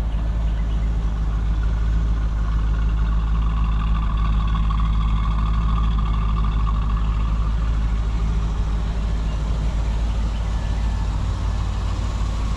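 A 2002 Chevrolet Corvette's LS1 V8 idling steadily, a constant low rumble. It grows a little brighter for a few seconds around the middle, when the microphone passes behind the car near the exhaust.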